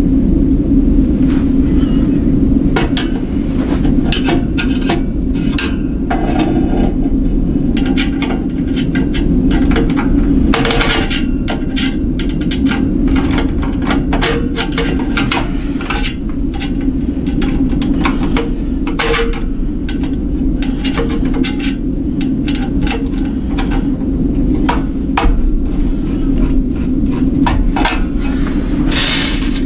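Irregular metal clicks, clinks and knocks of computer hardware being handled and fitted into a metal mining-rig case, over a steady low hum.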